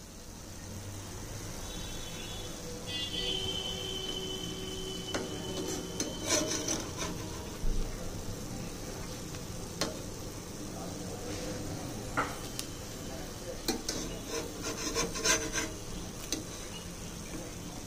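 Jackfruit pancakes sizzling on a flat iron pan, with a metal spatula scraping and clicking against the pan several times as it is worked under them.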